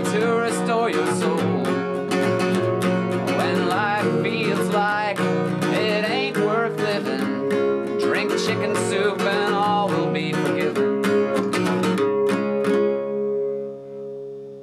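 Acoustic guitar song with steady strumming and a wavering melody line, ending on a final chord that rings and fades away over the last couple of seconds.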